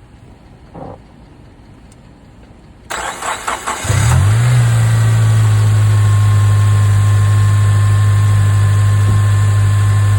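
Honda Accord engine cranked by the starter for about a second, catching and briefly flaring in speed, then settling into a steady idle.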